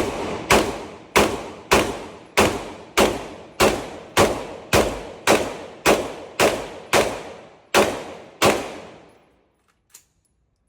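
CZ Scorpion Evo3 S2 Pistol Micro fired semi-automatically, about fifteen shots at a steady pace of under two a second, each shot echoing away. The string stops about three-quarters of the way through, and a faint click follows.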